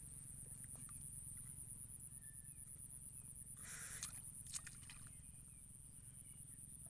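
Water buffalo wallowing in a muddy pool, with a short splash about four seconds in as its tail swishes out of the water, followed by a sharp click. A low rumble and a steady thin high whine run underneath.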